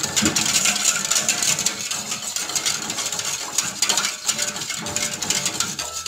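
Utensil stirring and scraping around a stainless steel pot, a quick continuous run of metallic clinks and scrapes. Rice-flour and jelly cendol batter is being cooked over medium heat and stirred without stopping so it doesn't catch and burn on the bottom.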